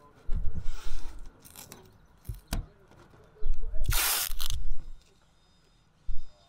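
Masking tape being pulled off the roll and laid on a van's metal roof, with knocks and bumps of handling; the loudest part is a short harsh rip about four seconds in.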